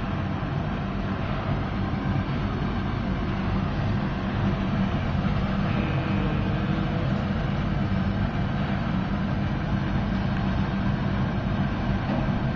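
Biomass gasifier furnace running under test, a steady rushing noise with a low, even hum that holds at one level throughout.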